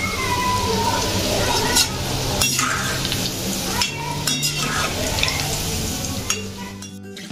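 Potato pieces deep-frying in hot oil in a kadai, a steady sizzle, with a perforated skimmer stirring them and clicking against the pan now and then.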